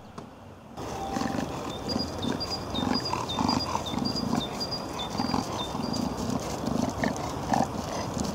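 A black long-haired dog on snow making short breathy puffs in a steady rhythm about twice a second. Behind it a small bird repeats a high two-note call, a higher note dropping to a lower one. The sound starts abruptly about a second in.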